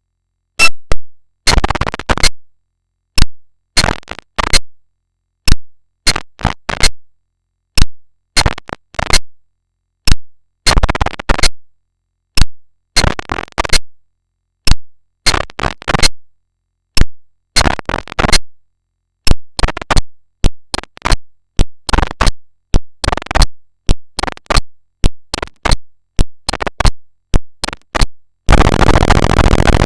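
Mock emergency-alert alarm audio, deliberately overdriven, chopped into short, harsh bursts that stutter on and off at an irregular pace with silent gaps between. Near the end it gives way to a continuous harsh, distorted din.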